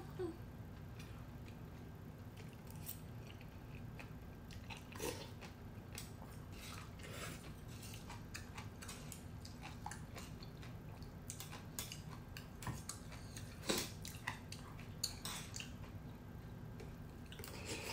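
A person chewing and eating red bean kalguksu noodles, with scattered light clicks of chopsticks and a metal spoon against the bowl.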